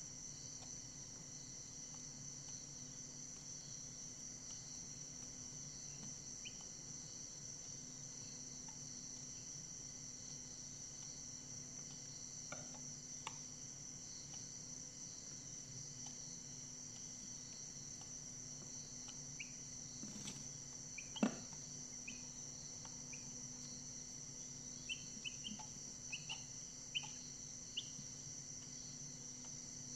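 Steady high-pitched insect chirring, with Brahma chicks in a brooder giving a few short, faint peeps near the end and one sharp tap about 21 seconds in.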